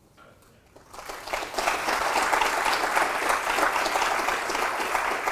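Audience applauding at the end of a talk, the clapping building up about a second in and holding steady.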